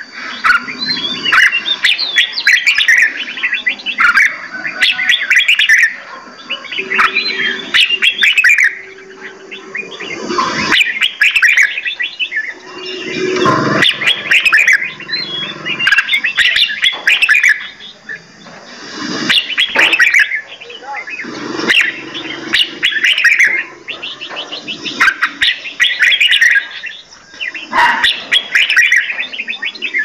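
Many caged birds in an aviary chirping and calling together: a dense, overlapping chorus of quick high chirps and trills, with a couple of brief lulls.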